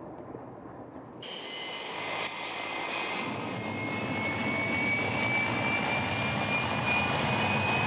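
MiG-31's twin Soloviev D-30F6 afterburning turbofans running at full afterburner for takeoff. The jet noise comes in suddenly about a second in with a high whine, then grows steadily louder while the whine slowly rises in pitch.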